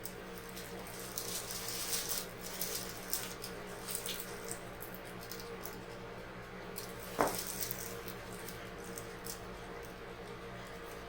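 Irregular soft rustling and crackling of hands and fabric against the patient as the chiropractor stretches the neck and shoulders, busiest in the first five seconds. One short, louder sound comes about seven seconds in.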